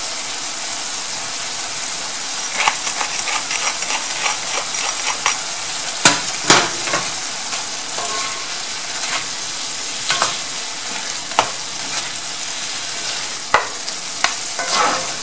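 Chicken and vegetables sizzling steadily in sauce in a cast-iron skillet while being stirred with a wooden spatula and spoon, with scattered knocks and scrapes of the utensils against the pan; the two loudest knocks come about six seconds in.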